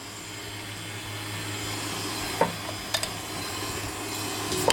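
Electric stand mixer running steadily with a low hum, its dough hook turning flour and oil in a metal bowl to coat the flour before the wet ingredients go in. A few light clicks and knocks are heard in the second half.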